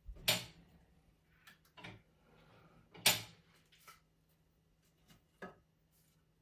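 Sharp metallic and wooden knocks and clunks from tending a wood-burning fireplace, two loud ones about a quarter second and three seconds in, with a few smaller knocks between and after.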